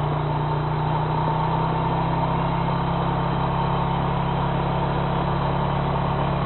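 ATV engine running at a steady cruising speed, an even, unchanging engine note with no revving.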